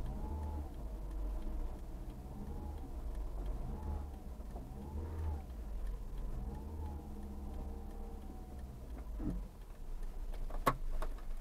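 Car engine running at low speed while parking, with a faint whine that rises and falls in pitch several times. The engine is switched off about nine seconds in, followed by a few sharp clicks near the end.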